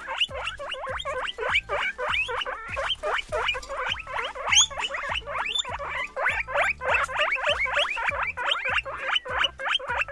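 Guinea pig squeaking in a fast, continuous run of short rising squeaks, about five a second, with children's background music underneath.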